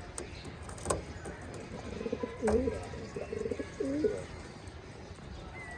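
Racing pigeons cooing: a few low, wavering coos from about two seconds in until about four seconds in, with a couple of short sharp clicks.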